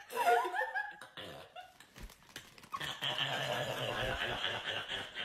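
A young woman's "burp laugh", laughing mixed with burping, in the first second or two. Then a steady, dense noise with a low hum takes over for the last two seconds or so.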